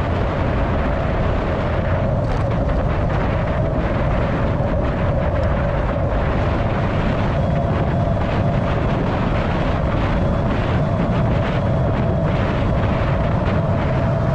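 Steady rush of wind buffeting a handlebar-mounted action camera's microphone as a road bicycle rolls at about 50 km/h, with a constant hum from the tyres on asphalt.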